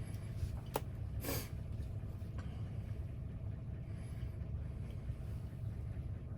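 Steady low hum with a sharp click a little under a second in, a brief scrape just after, and a faint tick later, typical of small lock parts being handled at a workbench.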